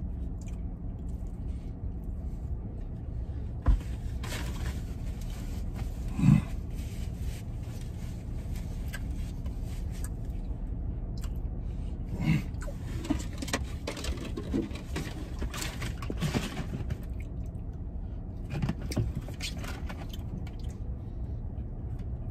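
Chewing and mouth sounds from a man eating a sandwich, with a few short low 'mm' sounds, over a steady low rumble inside a pickup truck's cab.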